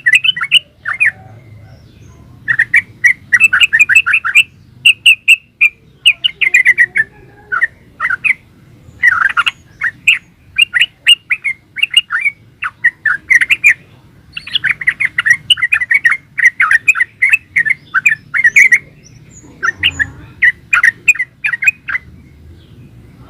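Yellow-vented bulbul (trucukan) singing in rapid runs of short chirping notes, phrase after phrase with brief pauses between them; the song stops about 22 seconds in.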